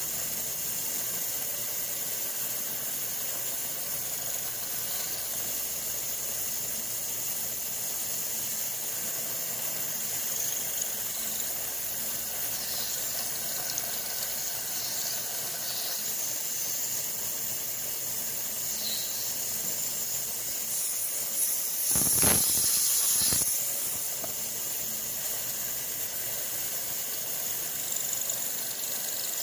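Steady hiss from the milling machine during a cutting pass on the 3D-printed fixture. About 22 seconds in comes a louder rush lasting about two seconds.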